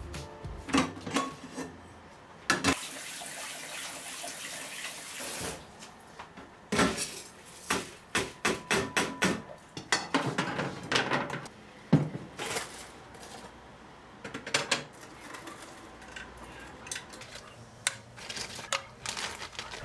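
Kitchen tap running for about three seconds, then a string of clinks and clatters as dishes, a stainless steel roll-up dish rack and utensils are handled at a sink.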